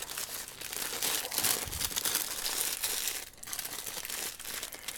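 Sheets of greaseproof baking paper crinkling and rustling as they are folded and pressed down by hand over loose tobacco in a wooden box.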